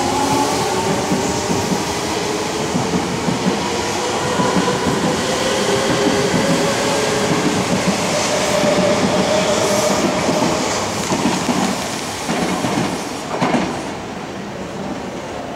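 Odakyu 1000 series electric train pulling out along a platform: the traction motor whine rises in pitch as it accelerates, over wheel and rail noise with clacking over the rail joints. About 13 seconds in, the sound drops to a quieter level.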